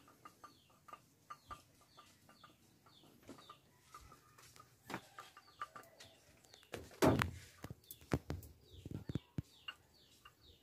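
Chickens clucking and small birds chirping repeatedly in the background. A few knocks and thumps from the work on the wooden boat come in over them, the loudest about seven seconds in.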